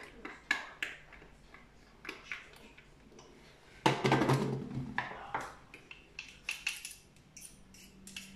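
Plastic utensils clicking and scraping as minced onion is scraped off a plastic food chopper's lid and blade into a plastic bowl, with a louder clunk about four seconds in.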